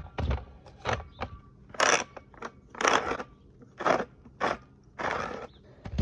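Wheat grains being crushed in the screw-down cap of a Super Pro grain moisture meter as the cap is twisted by hand. There are about nine short grinding strokes, the last one longer. The cap is turned until it stops, milling the sample before a moisture test.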